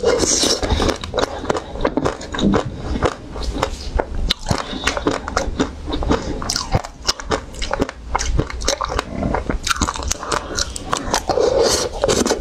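Close-miked eating: teeth biting into and chewing pieces of a frozen, coated ice cream bar, with many quick crunches and cracks of the coating.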